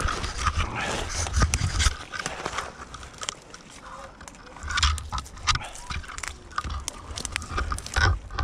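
Climbing gear being handled: a metal carabiner clicking and scraping against a webbing sling, with rustling of branches and gear and low handling rumbles. The rumbles come at the start, about halfway and near the end.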